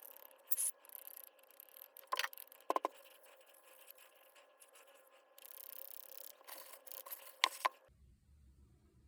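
Hands working on the parts of a cordless hammer drill: scattered small clicks and knocks over light scraping and rubbing. Near the end the sound cuts to a faint low hum.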